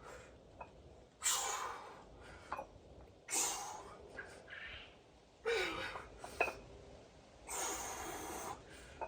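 A man breathing hard through a set of dumbbell curls: four forceful, hissing breaths about two seconds apart, in time with the reps, with a few faint sharp clicks between them.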